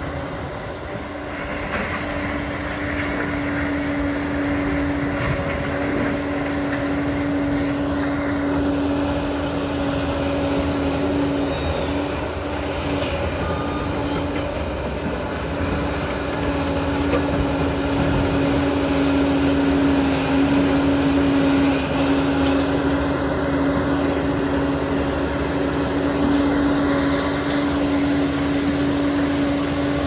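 Liebherr 746 crawler dozer working, its engine running steadily with a constant humming tone over a dense mechanical noise.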